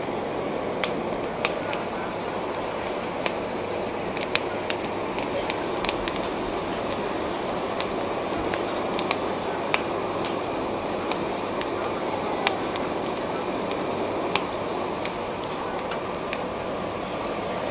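Butane cartridge torches hissing steadily as their flames grill oysters in the shell on a wire grill, with irregular sharp crackles and pops from the heating shells and juices.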